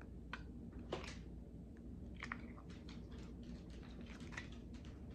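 Faint sticky clicks and squelches of stiff, crusted slime being handled and pulled apart in the hands.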